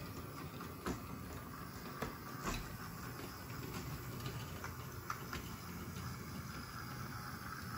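Small OO-gauge model shunting locomotive running slowly with a rake of tank wagons: a steady electric motor whirr, with a few sharp clicks as the wheels cross rail joints and points.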